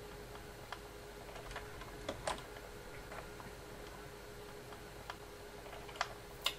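Faint vinyl record surface noise with a steady hum and scattered crackles and clicks, the stylus riding the run-out groove at the end of the record. A few louder clicks fall about two seconds in and near the end.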